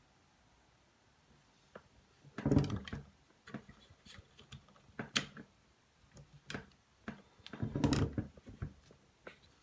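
Plastic tripod joystick head being handled and its controls worked: sharp clicks and light knocks, with two heavier bumps, the first about two and a half seconds in and the second near the end.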